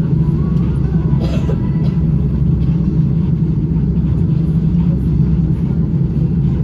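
Steady low rumble inside the cabin of an Airbus A330-900neo taxiing on the ground, from its Rolls-Royce Trent 7000 engines running at low power together with the cabin air.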